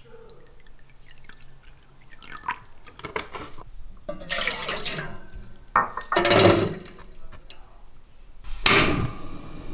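Water poured from a plastic bottle into a ceramic bowl, trickling quietly, then poured from the bowl into a stainless steel pot, splashing in louder bursts in the second half.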